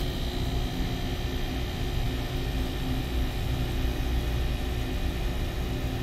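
Small refrigeration condensing unit (hermetic compressor and condenser fan) running with a steady hum, freshly started on its new R290 charge.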